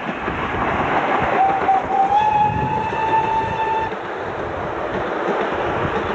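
F251 4-6-2 tank steam locomotive and its carriages rolling past close by, with a steady rumble and wheel clatter. About a second and a half in, the locomotive's steam whistle sounds for about two and a half seconds, rising slightly in pitch.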